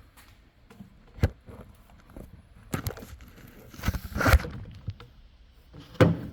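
Hands working on parts and tools: a few sharp knocks and clacks, with a louder scraping rustle in the middle.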